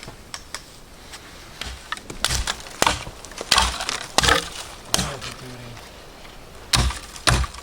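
Dry firewood being broken up: a series of irregular sharp cracks and snaps, several loud ones in the middle and two more near the end.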